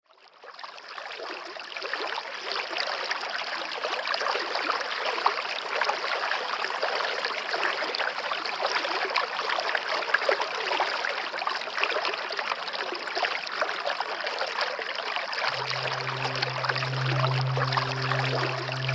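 Running water, a steady stream-like rush and trickle that fades in over the first second or two. About three-quarters of the way through, a low held music note enters beneath it.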